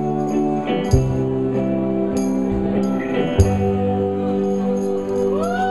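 A live folk band playing long held chords, with a tambourine jingling and a deep bass hit at about 1 s and another at about 3.4 s. Near the end, audience whoops and cheers begin.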